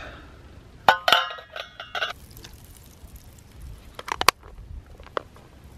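Metal pan lid clanking onto a frying pan: two sharp metallic clanks about a second in that ring briefly, then a few lighter clicks around four seconds.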